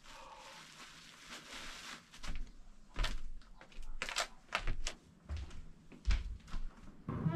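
Irregular knocks and thuds, about a dozen, beginning about two seconds in, as a person moves about and walks through a small room.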